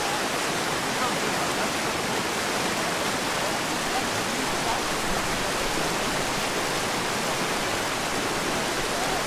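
Fast-flowing river rushing over rocks, a steady, even roar of water.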